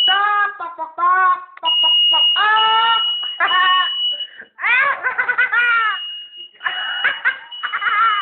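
A smoke alarm sounding a steady high-pitched tone in long stretches, cutting in and out, with rapid repeated 'ha-ha' laughing over it.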